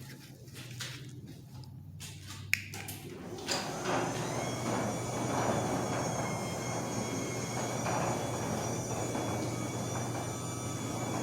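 Chamberlain belt-drive garage door opener starting up about three and a half seconds in, after a few clicks and a sharp snap, then running steadily with a whine as it rolls a commercial roller door along.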